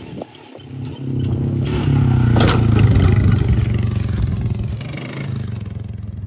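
ATV (four-wheeler) engine under throttle as it drives past close by, loudest about two and a half seconds in, where there is one sharp clatter, then fading as it rides away.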